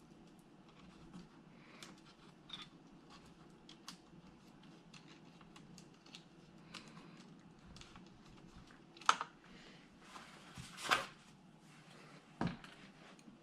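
Faint scattered clicks and light handling noises of small plastic laptop parts and the new CMOS battery being worked into place inside a Lenovo T530, over a low steady hum. A sharper click comes about two-thirds of the way through, then a brief scrape, and a short knock near the end.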